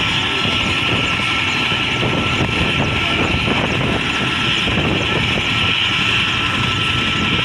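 Mi-17 helicopter running on the ground with its rotors turning: a steady high whine from the twin turboshaft engines over a dense, fast-beating low rotor rumble.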